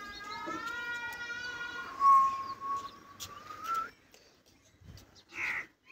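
A young wild boar squealing in distress while held in a dog's jaws: one long, high cry of nearly four seconds that rises in pitch at its end, then a shorter, rougher squeal near the end.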